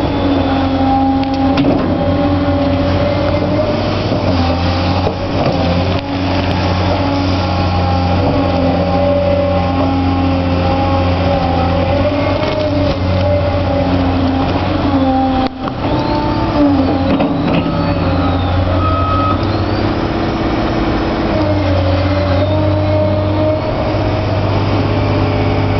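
Cat 365C L hydraulic excavator's diesel engine running under load as it digs and swings, its pitch shifting as the hydraulics work. In the second half a faint high whine rises and falls.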